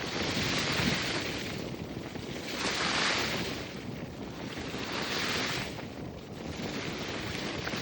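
Small waves washing onto a lake shore, each swelling into a hiss about every two seconds, with wind rumbling on the microphone.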